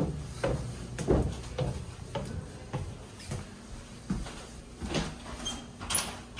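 Footsteps climbing wooden basement stairs and then walking onto a hardwood floor, a thud roughly every half second.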